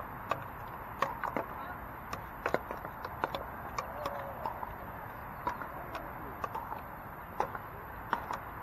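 Pickleball paddles striking the hollow plastic ball: sharp, irregularly spaced pocks, a dozen or more, from the rally and from neighbouring courts, over a steady background hiss.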